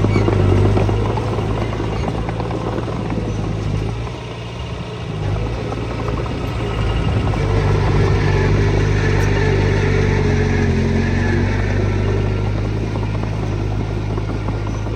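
Diesel engine of earth-moving machinery running steadily, easing off briefly about four seconds in and picking up again.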